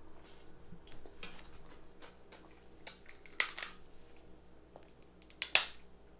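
Crab leg shells cracking and snapping in short, sharp cracks. A few small ones come first, then two loud clusters about three and a half and five and a half seconds in.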